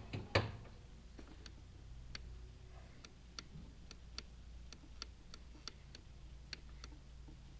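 Light ticking from chimney video-inspection equipment as the camera is lowered into the smoke chamber: a sharp click just after the start, then short faint ticks about two or three a second, uneven in spacing, over a low steady hum.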